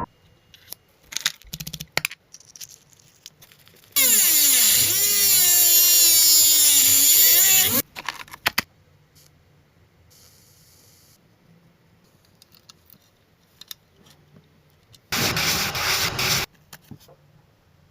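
A power tool's motor runs for about four seconds, its pitch dipping at the start and then holding steady, with clicks and knocks of handling before it and a second short, louder rush of noise near the end.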